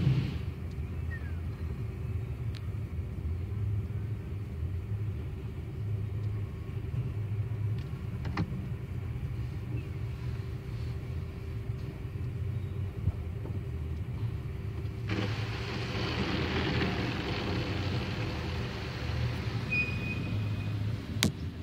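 Low steady rumble of an idling car and automatic car-wash machinery, heard from inside the car's cabin. About fifteen seconds in, a steady hiss of water spray on the car begins, and near the end there is a sharp click.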